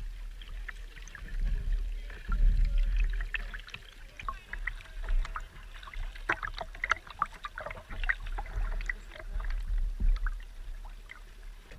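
Water splashing and dripping around a kayak being paddled, many small sharp splashes over a low rumble.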